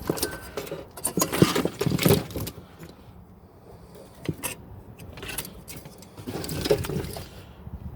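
Rustling and clinking of a loose car wiring harness and its plastic connectors being handled, with irregular sharp clicks, busiest in the first couple of seconds and again near the end.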